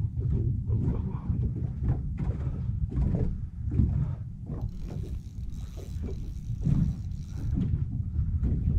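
Low, uneven wind rumble on the camera microphone, with a person's heavy breathing and short handling noises.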